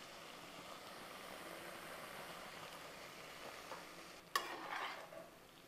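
Thick chicken curry sizzling softly in a pan over a gas flame, then a metal spoon knocks and scrapes against the pan about four seconds in.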